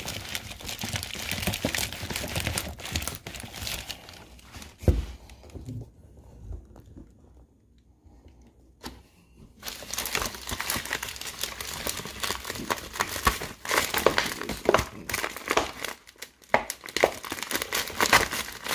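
Mailer packaging crinkling and tearing as a small package is opened by hand, with a low thump about five seconds in and a few seconds of quiet before the crinkling starts again.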